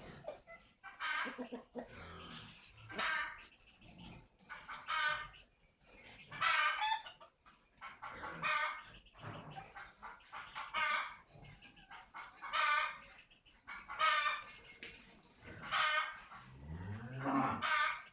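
Birds calling over and over, one call about every two seconds. Near the end there is a low call that rises and then falls.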